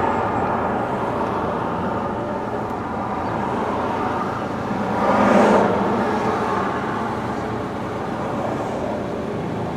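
Steady road noise inside a moving car's cabin, briefly louder about five seconds in.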